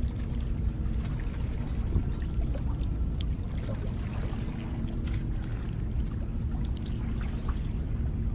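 Steady low rumble of wind on the microphone and water at the shore, with scattered faint ticks.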